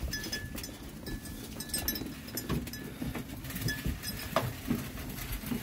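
Sheep shuffling and feeding in straw and hay, with rustling and scattered knocks and a short faint bleat about four seconds in.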